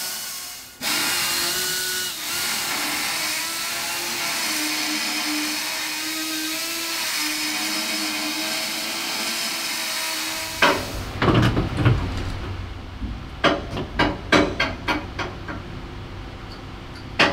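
A handheld power tool running under load with a wavering whine, cutting steel to elongate bolt holes in an engine-mount bracket; it starts about a second in and stops about ten seconds in. A run of sharp metal knocks and clatters follows.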